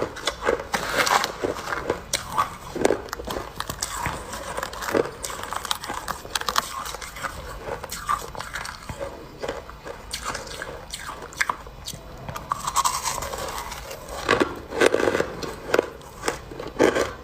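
Shaved ice being scooped with a spoon and chewed close to the microphone: irregular squeaky crunches and crackles, denser near the end.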